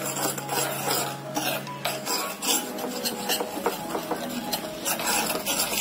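Steel spoon scraping and stirring in a small pan of bubbling sugar syrup mixed with salt and chilli powder, in a quick run of repeated scraping strokes.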